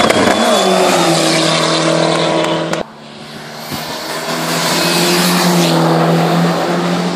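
Hillclimb race cars at full throttle. First one car's engine climbs toward the listener, then the sound cuts off abruptly. A yellow Ford Sierra RS Cosworth then approaches and passes close by, its engine note holding fairly steady.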